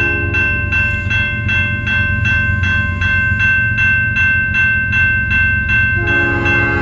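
Grade-crossing warning bell ringing steadily, about three strokes a second, over a low steady rumble. An approaching freight locomotive's multi-chime horn ends about half a second in and sounds again near the end.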